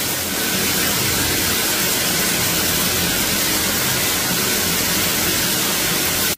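A shower running in a tiled stall: a steady, even hiss of water spray that cuts off abruptly at the end.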